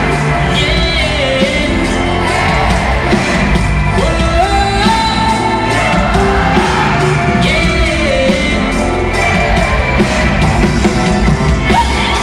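Live band playing through an arena sound system, with a male lead vocalist singing the melody, recorded from among the audience.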